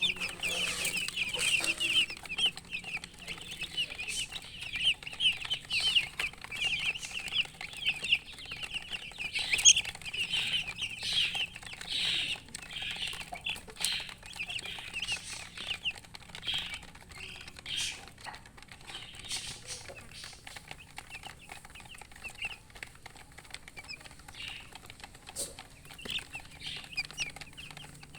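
A group of baby chicks peeping: many short, high calls that each slide downward, overlapping quickly at first and thinning out after about halfway, with a few sharp clicks among them.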